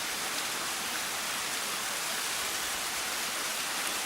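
Rushing water of a stream below, a steady, even hiss.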